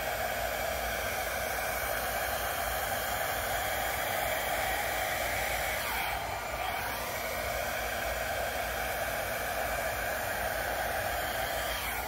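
Small hair dryer with a mesh nozzle running steadily, a constant rushing blow of air.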